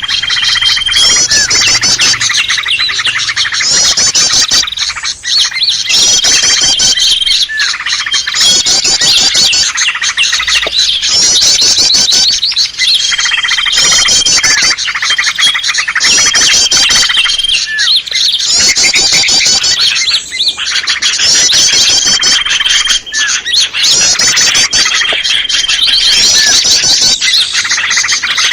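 Bird-lure recording of small songbirds such as prinias and bulbuls calling together: a loud, dense chatter of chirps and trills, with a short steady whistle that recurs every few seconds.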